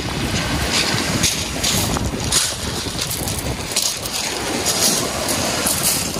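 Footsteps crunching over loose shingle pebbles in a quick irregular crackle, with wind rumbling on the microphone and surf washing at the water's edge.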